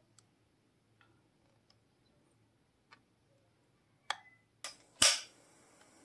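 A few faint ticks, then three sharp clicks about half a second apart near the end, the last the loudest, as the restored lion-shaped gas lighter is handled, followed by a faint steady hiss.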